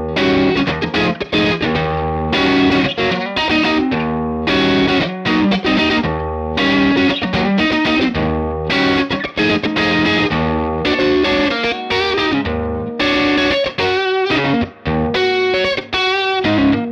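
Fender Stratocaster electric guitar played through the Universal Audio OX Box's speaker-cabinet and microphone simulation: a lead line of quickly changing single notes and short runs.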